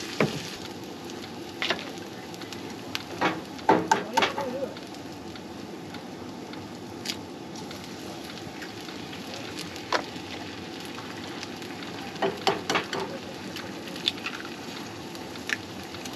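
Food sizzling in a frying pan on a camp stove, a steady hiss, with scattered clinks and knocks of utensils and jars being handled, a cluster about four seconds in and another about twelve seconds in.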